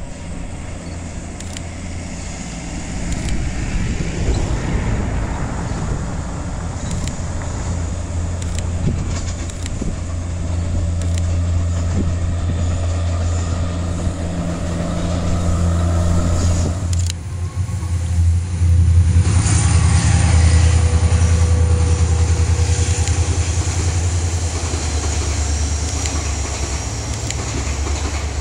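Electric-hauled passenger train running past, a steady low rumble that dips briefly about 17 seconds in and then comes back louder.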